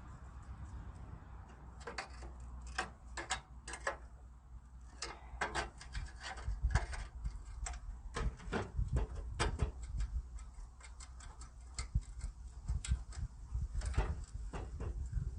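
Irregular sharp metallic clicks and taps of hand tools working on a car's radiator support, some in quick clusters, over a steady low rumble.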